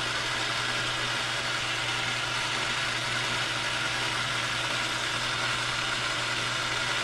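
South Bend metal lathe running steadily, taking a hand-fed turning cut with a CCMT carbide insert.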